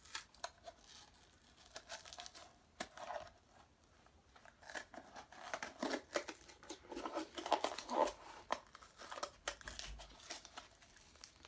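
Plastic and foil packaging being torn and crinkled by hand to open the lid of a powder supplement tub, in an irregular run of crackles and rips that grows busier in the second half.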